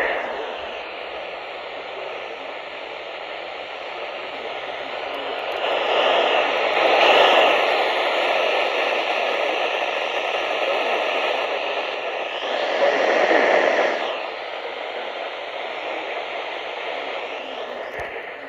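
Weather radio receiver hissing with static where the broadcast voice drops out. The hiss swells louder twice, once about six seconds in and again about twelve seconds in.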